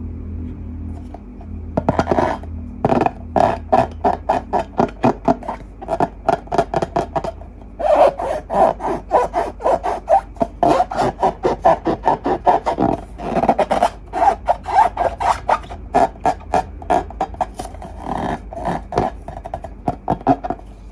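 Slime being worked by hand: a fast, rhythmic run of short rubbing, squishing strokes, about two to three a second. It starts about two seconds in and pauses briefly now and then.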